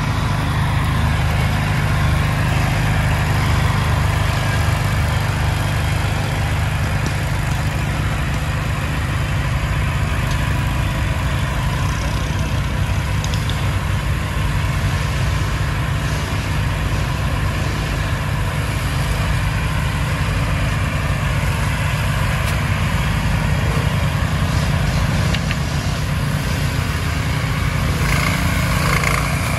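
Racing lawn tractor's small engine running steadily as the modified garden tractor on knobby tyres crawls up a muddy trail.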